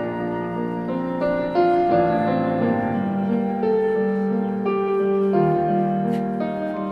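Slow, tender instrumental ballad music led by piano, with held notes and chords and no singing.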